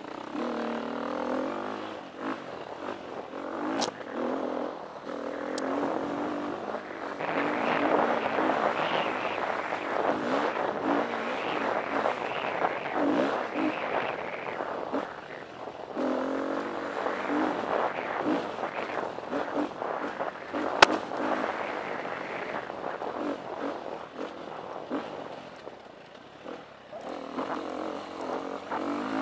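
Onboard sound of a KTM 350 EXC-F dirt bike's single-cylinder four-stroke engine, revving up and easing off again and again with the throttle as the bike is ridden. It is loudest about a third of the way in, eases off for a moment about four-fifths through, and a sharp knock stands out about two-thirds through.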